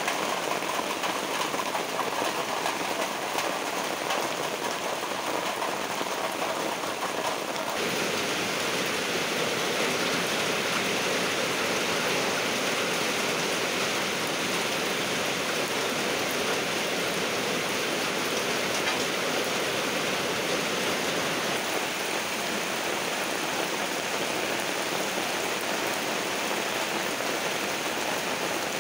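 Heavy rain falling on foliage, ground and standing water, a steady dense hiss. About eight seconds in it turns brighter and heavier.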